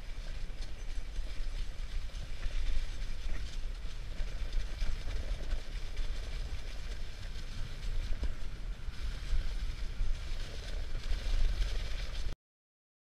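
A moving dog sled on a snow trail: a steady rushing and rumbling of runners sliding over snow, with wind buffeting the microphone. It cuts off suddenly near the end.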